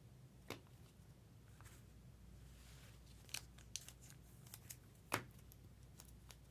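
Faint clicks and light rustling from trading cards and their packaging being handled, with the loudest click about five seconds in, over near silence.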